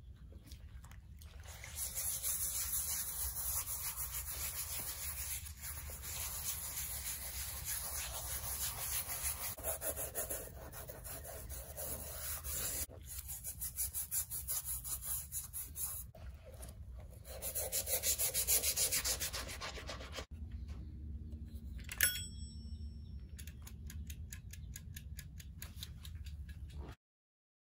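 Stiff plastic scrub brush scrubbing a wet leather handbag in soapy water: rapid scratchy brushing strokes with short pauses. The scrubbing stops about twenty seconds in, leaving a faint crackle and one sharp click.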